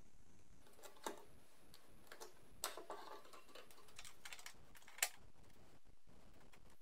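A run of small clicks and knocks as the fuel pump assembly is lowered into the fuel tank and its retaining ring is fitted, with one sharp click about five seconds in.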